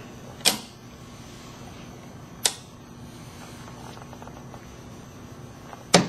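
Three sharp plastic clicks about two seconds apart, the last and loudest near the end: the protection-sleeve heater lid and clamps of a Fitel S177 fusion splicer being pressed shut over a fiber splice sleeve.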